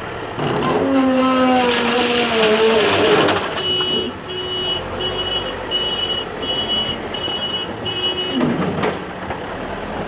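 JCB backhoe loader working: a pitched engine and hydraulic whine slides downward over about two seconds with a rush of noise, then its reversing alarm beeps about seven times, evenly spaced, as the machine backs away.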